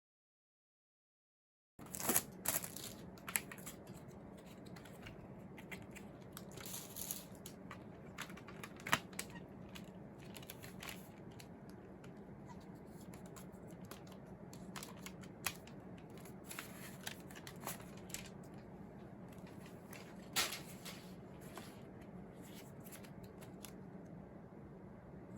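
Hands opening CD packaging: scattered clicks and taps with short crinkling and tearing of plastic wrap. The sound starts after a brief dead-silent gap at the beginning.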